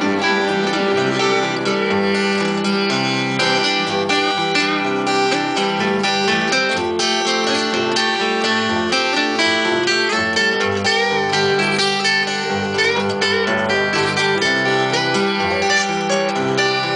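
Instrumental break of a live country song: acoustic guitars strumming and picking over a bass guitar, with no singing.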